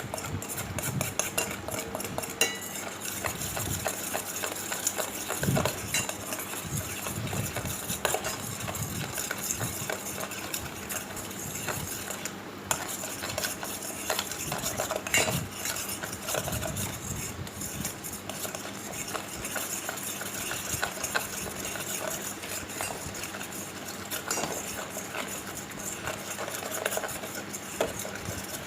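A metal spoon stirring and scraping in a bowl, with steady irregular clinks and scrapes against its sides.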